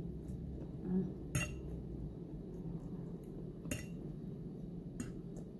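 Metal fork clinking against a plate as food is picked up, about three sharp clinks spread across a few seconds with fainter taps between, over a low steady hum.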